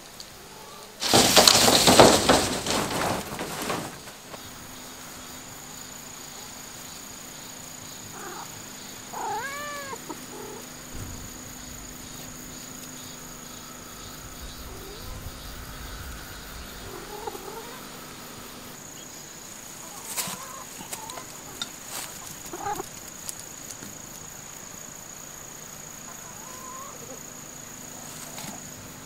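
Domestic cats meowing: one clear short meow about ten seconds in and a few fainter meows later on. A loud rustling burst lasts a few seconds near the start.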